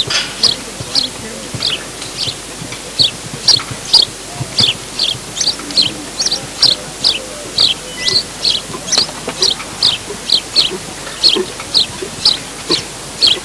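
A small bird chirping over and over, short high notes at about two to three a second.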